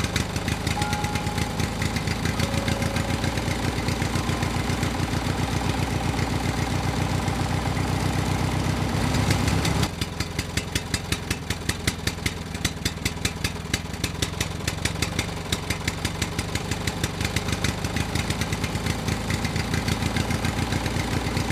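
Small motor of a homemade mini crawler tractor running with a rapid, even beat. About halfway through, the deeper hum drops away and it goes a little quieter.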